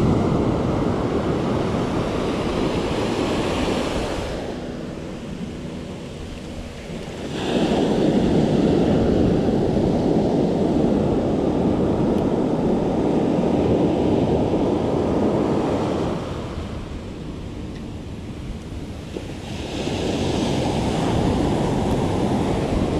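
Ocean surf breaking and washing up the sand, swelling loud for several seconds at a time with two quieter lulls between waves. Wind buffets the microphone.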